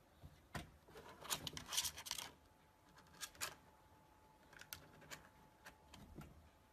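Caracal kitten scrambling against a plastic pet carrier with a wire door: a quick flurry of scratching and clicking about a second in, then a few scattered clicks.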